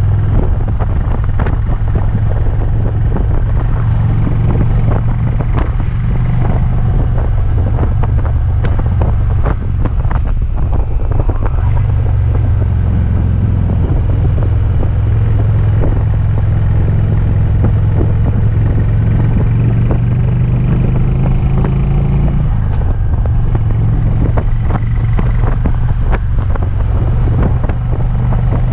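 Harley-Davidson Twin Cam 103 V-twin engine running under load, with wind on the microphone and a ticking noise heard over the engine's drone. The tick comes on under load but not at idle, and the owner cannot place it: it persists after a new compensator, new tappets and pushrods, and a check of the rocker arms.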